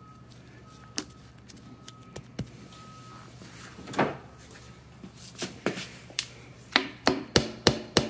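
A frost plug being driven into a Jaguar XK engine block with a drift: a few scattered taps and clicks, then a quick run of about six sharp hammer blows near the end as the plug is seated.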